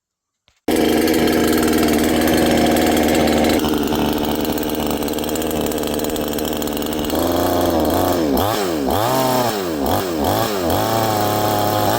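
Neotec NCS6200 62cc two-stroke chainsaw, new and on its first run, starting abruptly about a second in and running steadily, then revved up and down over and over, a little more than once a second, through the second half.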